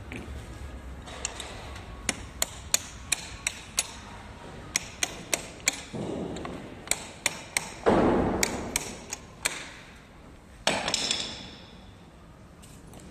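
A hammer striking the metal folding-hinge bracket of an electric scooter's stem: a run of sharp knocks, about three a second, with a short pause partway through. Several louder, rougher blows come in the middle, the heaviest about eight seconds in, and one more near the end.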